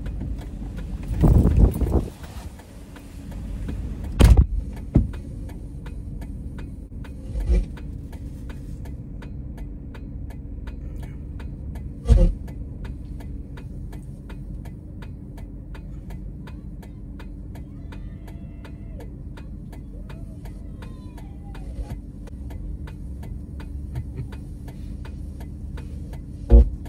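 Steady low hum inside a truck's cabin, with an even ticking about twice a second and several sharp thumps, the sharpest about four seconds in.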